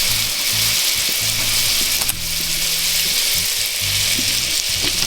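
Butter and oil sizzling steadily in a hot frying pan, a continuous crackling hiss.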